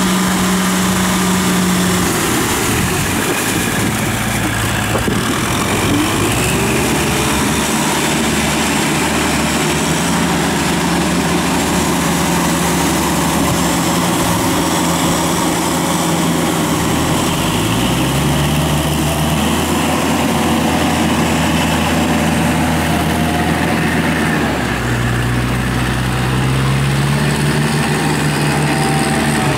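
Kubota tractor diesel engine running under load while pulling through a flooded rice paddy on iron cage wheels. The engine note is steady and loud, and its pitch shifts up and down several times as the engine speed changes.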